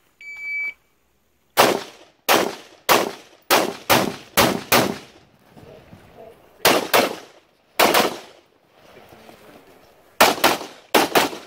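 A shot timer's start beep, then rapid semi-automatic carbine fire during a timed stage. A quick string of seven shots, a pause, three more, and a fast group of four near the end.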